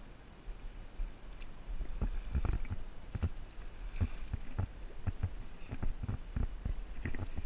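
A 20-inch rainbow trout thrashing and splashing at the river surface as it is scooped into a landing net: a run of irregular wet splashes and knocks over steady moving water.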